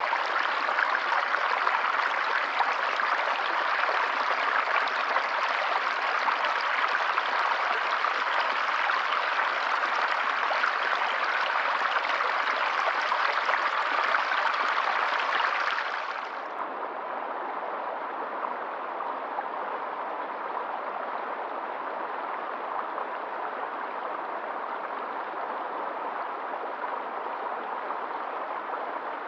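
River water flowing steadily. About sixteen seconds in it changes abruptly to a quieter, duller stretch of flowing water.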